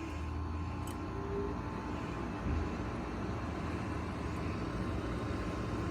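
Haier window air conditioner running on low cool just after startup: a steady fan and motor hum.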